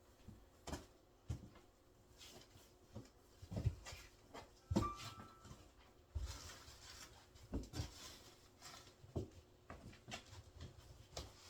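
Scattered light knocks, taps and rustles of decorations being handled and set around a cardboard fireplace, with a brief faint squeak about five seconds in.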